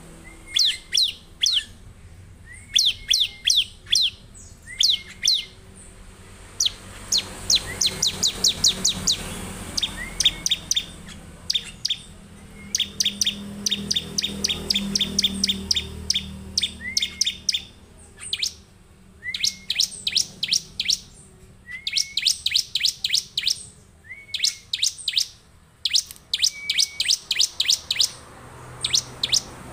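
A caged ciblek (bar-winged prinia) singing vigorously: rapid bursts of sharp, high chipping notes, each burst about a second long and repeated every second or two, many opening with a short lower note.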